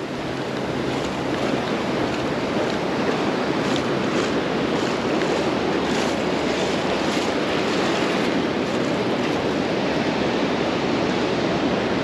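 Ocean surf washing up the beach: a steady rush of shallow water running and foaming over sand.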